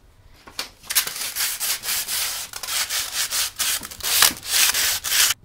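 Sandpaper rubbed quickly back and forth by hand over the painted metal stem of a scooter, sanding down the old paint before it is resprayed. The strokes start about a second in and run on without a break until just before the end.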